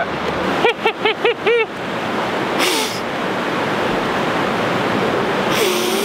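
River water rushing in a loud, steady wash. About a second in, a quick run of six short high-pitched calls sounds over it, and two brief hissing bursts come near the middle and near the end.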